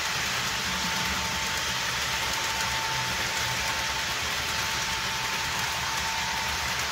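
HO-scale model freight cars rolling on track, a steady hiss of wheels on rail, over the low drone of the SD45 sound decoder's 20-cylinder diesel engine sound from its small speaker. A steady high whine runs along with them.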